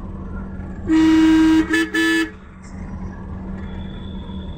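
A vehicle horn honks: one long honk and then two short ones, over the steady low rumble of a vehicle on the move.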